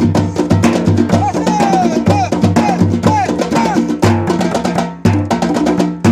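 Brazilian percussion group playing a fast, dense drum groove on timbal hand drums, with deep bass-drum strokes under it. Several short swooping tones rise and fall over the drums about one to three seconds in, and the rhythm breaks off briefly just before five seconds before picking up again.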